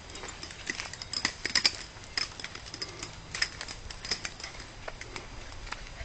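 Footsteps crunching along a leaf-littered dirt forest path: irregular clicks and crackles, busiest about one to two seconds in.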